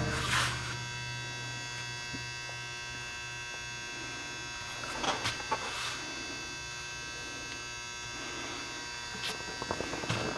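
A steady electrical hum of several fixed tones, with a few faint knocks and rustles about halfway through and near the end.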